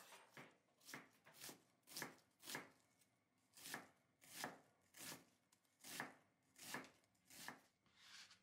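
Kitchen knife mincing onion on a wooden cutting board: a steady run of chopping strokes, roughly three every two seconds, with a short pause about three seconds in.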